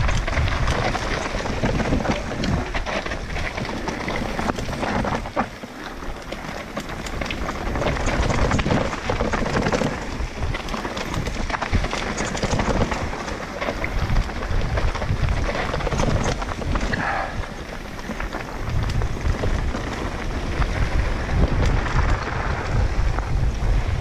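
Mountain bike riding fast down a rough trail: tyres rolling over dirt and roots, the bike rattling over bumps, with wind rushing over the microphone.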